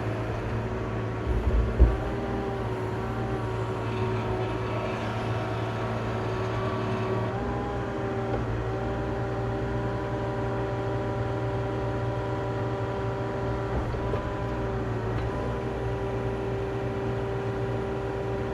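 Doosan DX35Z-7 mini excavator's diesel engine running steadily as the machine is worked, with a thump about two seconds in and a slight change in engine note about halfway through.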